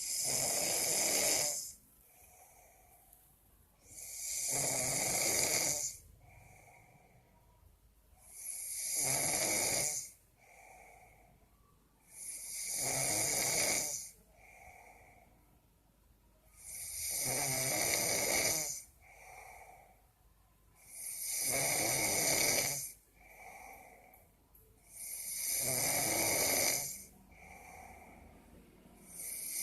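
A sleeping person snoring in a steady rhythm: a long snore about every four seconds, with a fainter breath between each snore.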